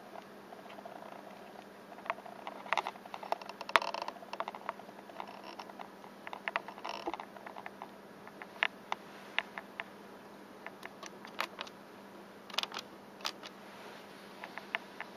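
Keys of an Elektronika MK-52 calculator being pressed: short, sharp clicks at irregular intervals, some in quick runs, over a faint steady hum.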